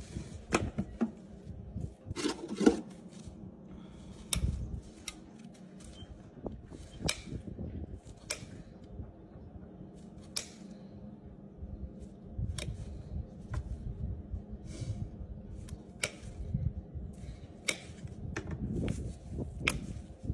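Hoof nippers cutting through the hard outer wall of a horse's hoof: sharp snips at irregular intervals, about one every second, over a low handling rumble.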